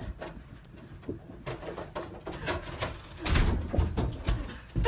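Light knocks and thuds from a cat climbing carpeted stairs and bumping against a door at the top, growing heavier from about three seconds in.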